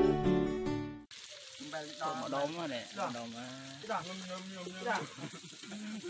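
Acoustic guitar music fades out in the first second. Then duck pieces sizzle as they are stir-fried in a metal pot with a metal ladle, with faint voices in the background.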